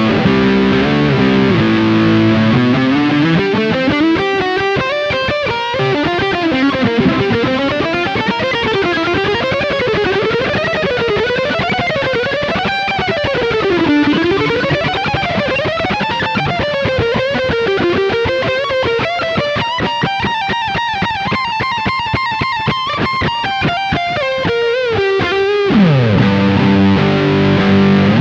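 Tokai ALS62 Gold Top Les Paul-style electric guitar played on its neck humbucker. A few chords open, then fast single-note runs weave up and down, a high note is held for a few seconds near the end, and the passage closes on chords.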